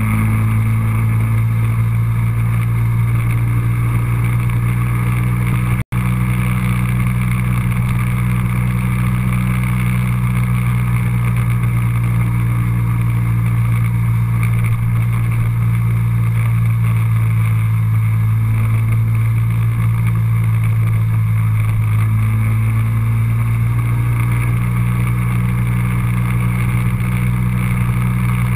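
Steady drone of a moving motor vehicle's engine, its pitch shifting slightly now and then. The sound cuts out for an instant about six seconds in.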